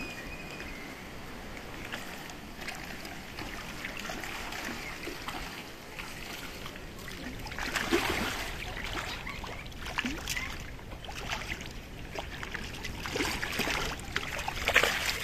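Seawater splashing and lapping against rocks as large fish churn the surface, with bursts of louder splashing about eight seconds in and again near the end.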